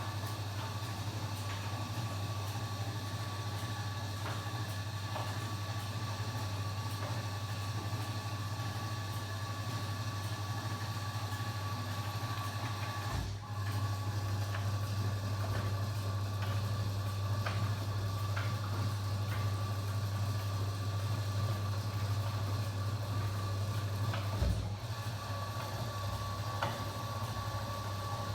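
Kenwood washing machine running, a steady low motor hum with a faint whine above it. The hum breaks off briefly twice, about 13 and 25 seconds in.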